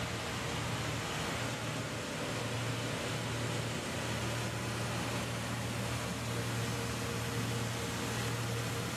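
Metax MP7 high-pressure triplex pump unit running steadily: a continuous mechanical drone with a strong low hum.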